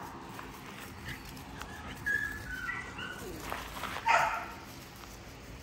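XL American bully puppy giving one short bark about four seconds in.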